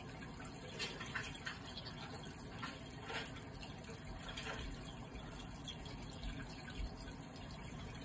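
Faint steady hum with a few scattered faint crackles and ticks, typical of tinfoil arcing inside a running microwave oven, played back from a computer.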